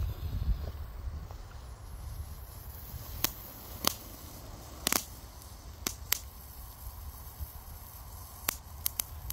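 Klasek DP1FR Rozpustilé Fontánky, a tiny red novelty firework fountain, burning with a faint steady hiss and scattered sharp pops, about eight of them from about three seconds in, over a low rumble.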